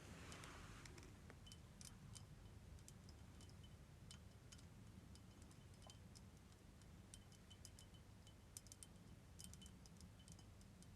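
Faint, sparse crackling clicks at irregular intervals, with a soft breath in the first second.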